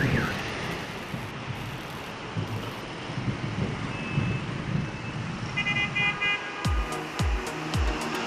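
Street traffic rumbling, with a few short horn toots about five and a half seconds in. Near the end a music track begins, a deep kick-drum beat thumping about twice a second.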